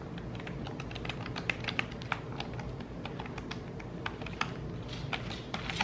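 Stiff cardstock recipe cards in a binder being flipped through one after another: an irregular run of light paper ticks and flaps.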